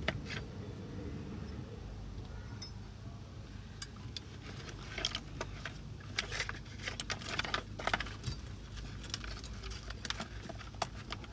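A run of light metallic clinks and jingles, like keys or small metal parts being handled, over a steady low hum.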